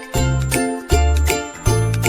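Background music: an upbeat instrumental with a steady beat, a bouncing bass line and bright, bell-like tinkling notes.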